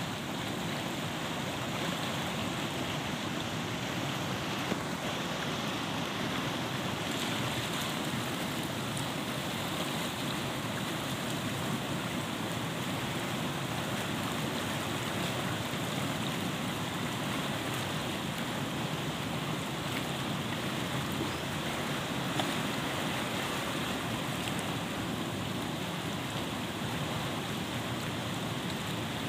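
Steady rush of a fast-flowing muddy river, an even wash of water noise with no pauses.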